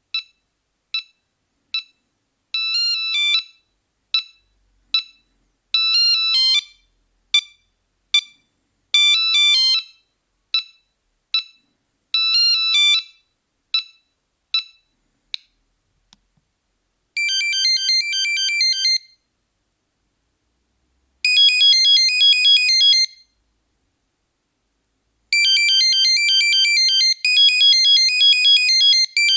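Nokia 3310 monophonic ringtones. First a tune of short, evenly spaced beeps broken every few seconds by quick runs of notes, which stops about fifteen seconds in. After a short pause a second, faster ringtone plays in phrases of rapid notes separated by brief gaps.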